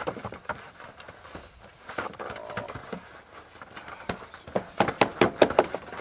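A Belgian Malinois puppy's paws scrabble and knock on a wet sheet-metal trailer bed, with a quick run of sharp knocks about four and a half to five and a half seconds in.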